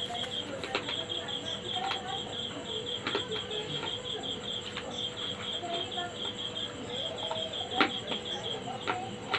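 Crunchy bites and chews of a slate pencil: a few sharp crunches at uneven intervals, the loudest near the end. An insect trills steadily in rapid pulsed chirps behind it.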